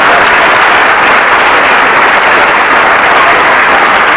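Studio audience applauding steadily, a dense, even clatter of clapping.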